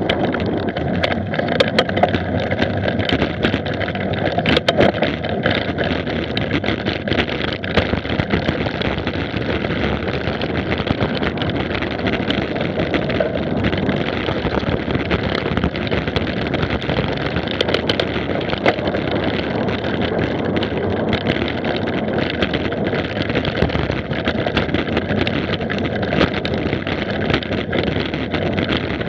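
Wind buffeting the microphone of a camera on a mountain bike riding fast over a rough dirt track, with steady tyre and drivetrain rumble and frequent sharp rattles and knocks as the bike jolts over bumps.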